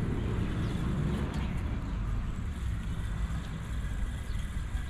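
Steady low rumble and hiss of wind and waves, with no distinct events.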